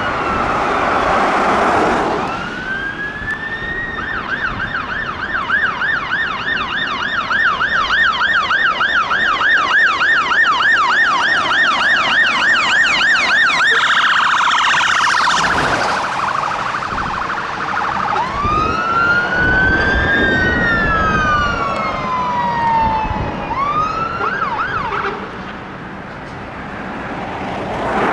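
Fire engine's electronic siren: a rising wail, then a fast yelp of about two or three cycles a second for some ten seconds. After a brief noisy break comes one slow wail up and down, a short rising whoop, and road noise as the siren stops near the end.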